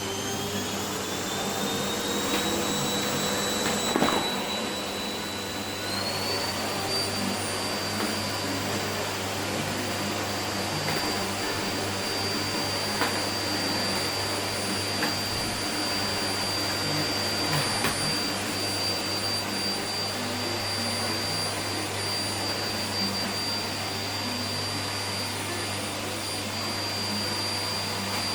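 Vacuum cleaner running: its motor whine rises in pitch as it spins up over the first few seconds, steps higher about six seconds in, then holds steady. A few short knocks sound as it is pushed around.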